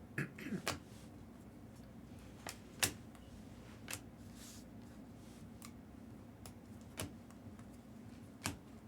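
Trading cards being handled: quiet, scattered clicks and taps as cards are flipped and set down, about eight in all at irregular intervals.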